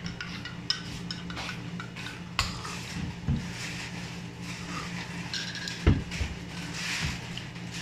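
A metal spoon clinking against a ceramic coffee mug as coffee is stirred, in a few scattered light clicks. A louder knock about six seconds in, as the mug is set down on the table. A steady low hum runs underneath.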